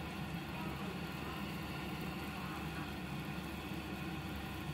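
Pot of chicken-foot broth at a rolling boil on the stove: a steady bubbling rumble with an even hum under it.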